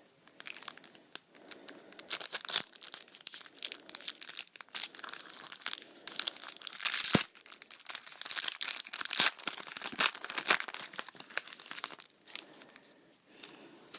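Yu-Gi-Oh booster pack's foil wrapper being torn open and crinkled by hand: an irregular run of crackling rips and crinkles.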